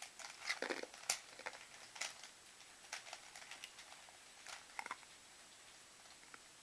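Plastic Rubik's Cube being turned by hand: faint, irregular clicks and short rattles of the layers twisting.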